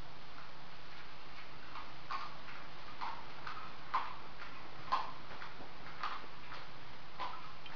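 Kitten giving short, high squeaky mews, about one a second at an uneven pace, the loudest two in the middle.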